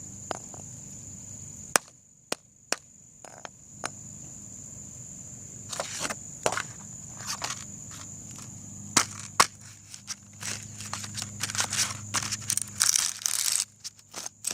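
A novelty sound birthday card being crushed and broken apart: scattered sharp snaps and clicks at first, then runs of crackling and crinkling that grow denser in the second half.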